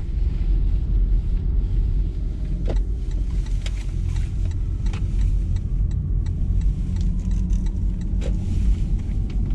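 A car on the move: a steady low rumble of engine and road noise, with scattered light clicks and rattles.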